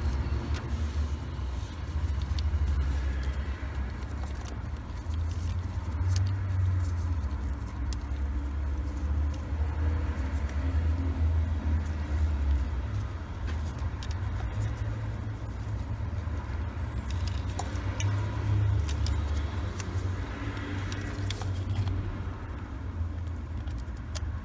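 A low, steady rumble with scattered light clicks and scrapes of a screwdriver working the T25 screw that holds a crankshaft position sensor in the gearbox housing.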